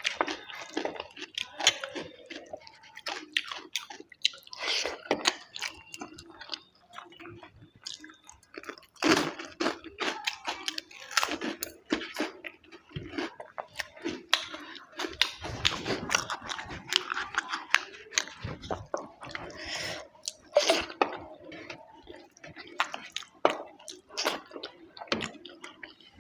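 A person eating close to the microphone: irregular chewing with crunchy bites.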